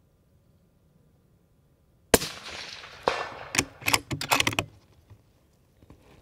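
A single shot from a Bergara B14 HMR bolt-action rifle in 6.5 Creedmoor about two seconds in, with its report dying away over about a second, then a further knock, and a quick run of metallic clicks as the bolt is worked to eject the case and chamber the next round.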